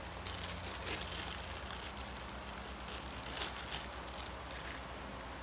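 Light clicks and rustles of small parts being handled and sorted, heaviest about a second in and again near the middle, over a steady low hum.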